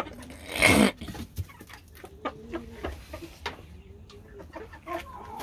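Rooster clucking in several short, low calls, after a loud, brief rustle of its wings about half a second in as it hops down from its perch to the straw floor.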